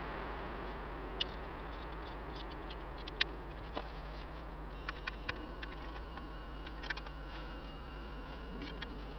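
Glowing charcoal in a small tabletop grill crackling with sparse, irregular sharp pops, over the steady hiss of a camping gas stove burner heating a pot.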